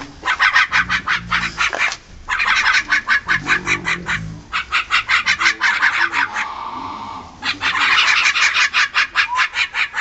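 Javan mynas giving a harsh, rapid chatter: runs of sharp notes, about eight a second, broken by short pauses, with one longer hoarse call about seven seconds in.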